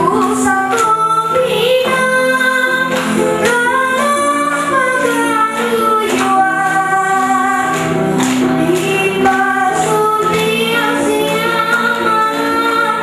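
An eight-year-old girl singing solo into a handheld microphone over an instrumental accompaniment of held chords.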